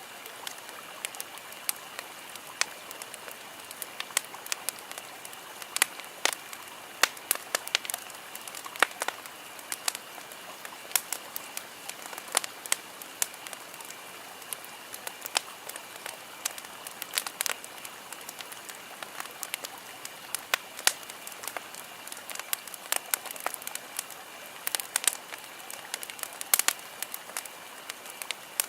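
Camping ambience sound effect: irregular sharp pops and crackles over a steady hiss.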